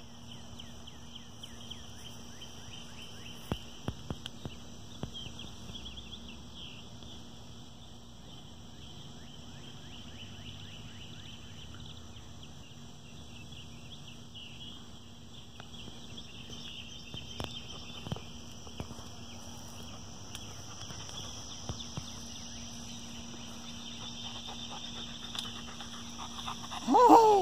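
A steady, high insect chorus over a faint low hum, with a few light snaps and rustles. Near the end come two loud cries that fall steeply in pitch.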